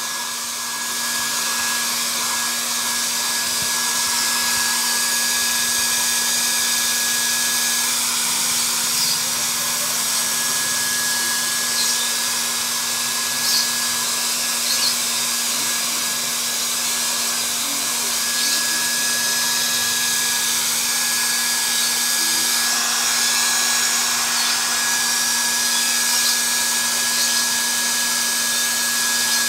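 Electric blow dryer running steadily at one constant pitch, drying a freshly bathed cat's fur.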